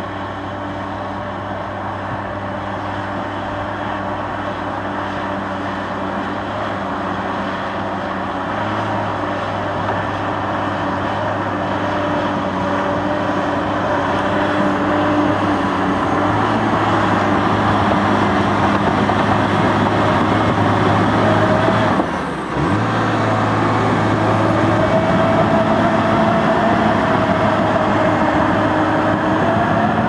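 Case 1650M LGP crawler dozer's diesel engine running steadily under load as it pushes soil, growing louder as it nears. There is a brief drop about two-thirds of the way through, and after it a wavering whine rides over the engine.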